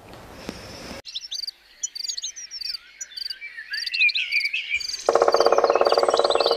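Birds chirping, then about five seconds in a frog's loud, rapidly pulsed trill joins them.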